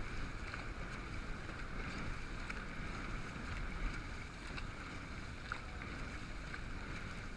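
Steady wind noise on the microphone over water rushing and splashing around a dragon boat being paddled, with a few faint ticks.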